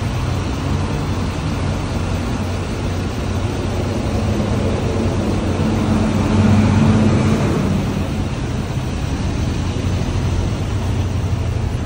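Road traffic: a steady low engine hum with passing vehicles, swelling as one goes by about six to seven seconds in.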